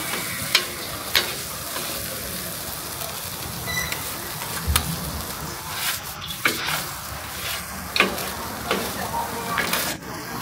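Cheesy corn sizzling on a hot griddle, a steady hiss, with sharp clicks every second or so as it is worked on the plate.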